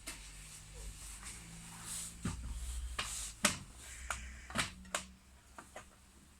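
Sharp clicks and taps of laptop parts and small hardware being handled and set in place during reassembly, about seven in all, the loudest about three and a half seconds in, with faint handling noise between.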